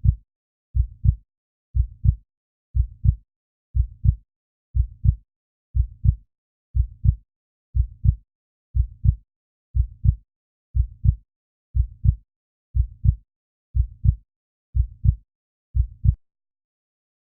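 Heartbeat sound effect: low double thumps (lub-dub), one beat about every second, steady and even, stopping shortly before the end.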